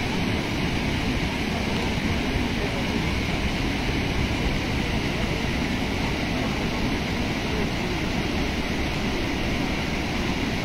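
River water pouring over the crest of a concrete anicut (low weir) and churning down its face: a steady, continuous rush of water.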